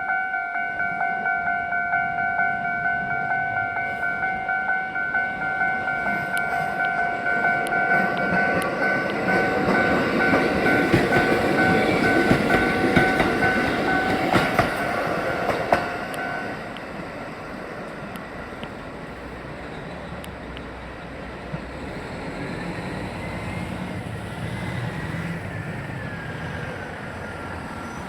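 Japanese railway level-crossing warning bell ringing in a steady rhythm while a Kotoden 1300-series electric train passes over the crossing, its wheels clattering over the rail joints. About sixteen seconds in the bell stops and the train noise fades to a lower rumble.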